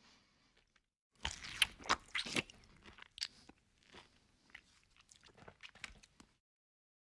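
Close-miked chewing of a mouthful of rice and crisp fried fish, with a burst of loud crunches about a second in, then softer, scattered chewing. The sound cuts off abruptly near the end.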